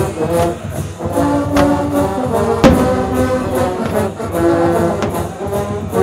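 Marching band brass, sousaphones among them, playing a tune with a steady pulse of sustained notes, punctuated by a few sharp drum hits.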